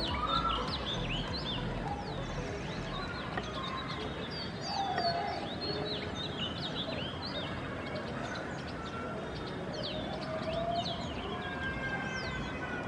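Small birds chirping and twittering, many short, quick, high calls in rapid succession, over a steady background noise.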